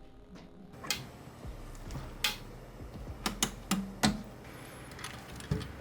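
Scattered clicks and knocks of camera gear being handled: a camera body and lenses being set out, with a quick run of sharp taps in the middle.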